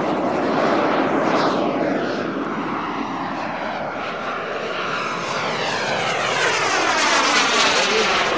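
Turbine-powered radio-controlled model BAE Hawk jet flying overhead. The turbine's rushing noise holds steady, with a sweeping shift in tone as the jet passes.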